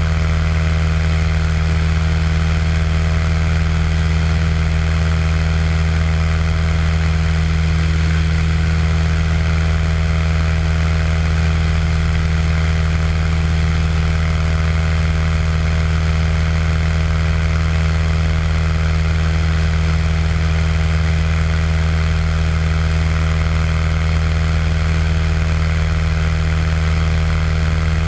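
Cessna 182 single-engine propeller plane in level cruise, its piston engine and propeller giving a steady, unchanging drone with a deep hum underneath.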